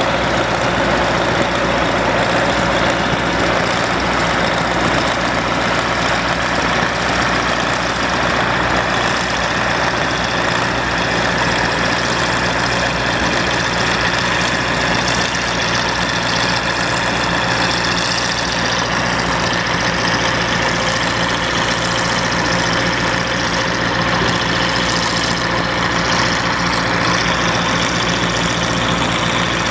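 Harvest machinery running steadily in a wheat field: a constant engine drone with a steady whine above it.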